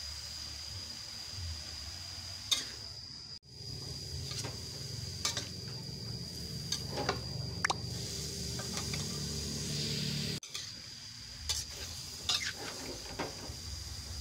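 Metal spatula stir-frying shredded young papaya in a wok: a low sizzle with scattered clinks and scrapes of the spatula against the pan.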